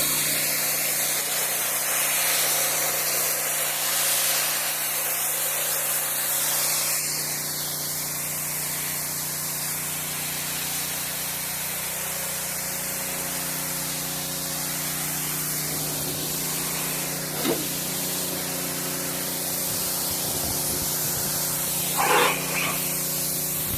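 Pressure washer spraying a concrete pad: a steady, dense hiss of the high-pressure jet on the surface over a constant hum from the machine, with two brief louder chirps in the later part.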